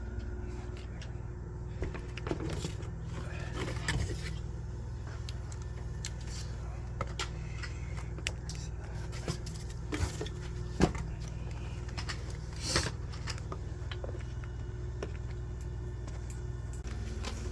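Scattered clicks, clinks and scrapes of a screwdriver working at the bolts of a flimsy cardboard back panel, over a steady low hum.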